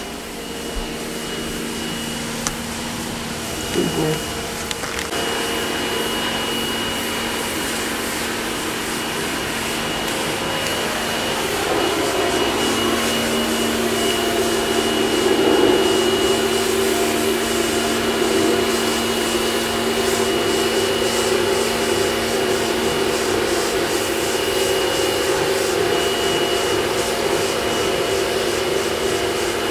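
A steady mechanical drone like a running motor, with a constant high whine above it, growing louder about twelve seconds in; a couple of brief knocks sound about four seconds in.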